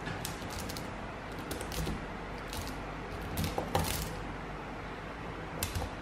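Small magnetic balls clicking together in scattered light clicks as a magnetic-ball piece is pressed onto a magnetic-ball sculpture, with a short cluster of louder clicks a little past halfway. A low steady hum runs underneath.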